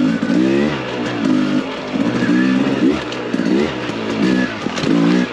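Beta 300RR two-stroke dirt bike engine being ridden on a trail, its pitch rising and falling about once a second as the throttle is worked on and off.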